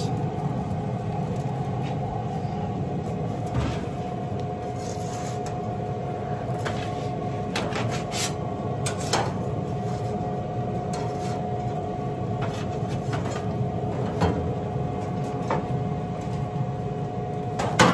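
Metal spatula and sheet pan clinking and scraping against pellet-grill grates as flatbread pizzas are lifted off, a scattering of sharp clanks. Under them the lit Weber SmokeFire EX6 pellet grill's fan runs with a steady hum.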